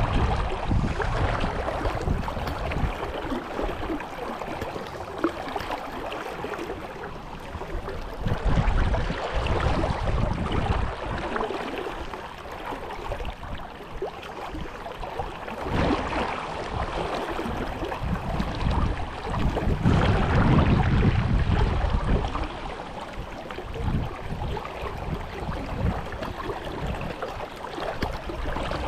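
Steady rush of a brook's flowing water, with gusts of wind buffeting the microphone several times.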